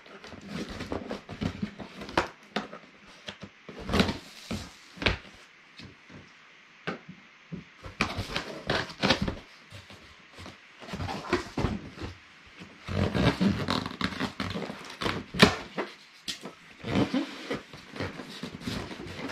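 Large cardboard box being cut open and unpacked by hand: knife slitting the packing tape, then flaps and cardboard inserts scraping, knocking and rustling in irregular bursts.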